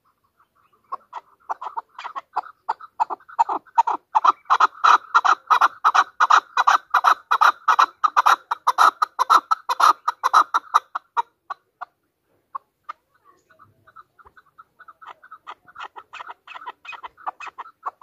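Chukar partridge calling: a fast, even run of harsh clucking 'chuck' notes, several a second, building up, breaking off about eleven seconds in, then starting again more softly.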